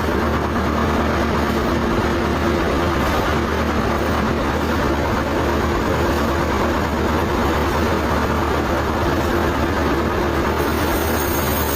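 Sawmill machinery running steadily: a continuous loud mechanical drone with a low hum, unchanging throughout.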